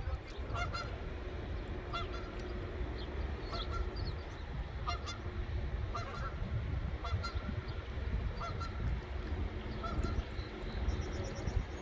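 Geese honking, with repeated short calls roughly once a second at irregular intervals, over a steady low rumble.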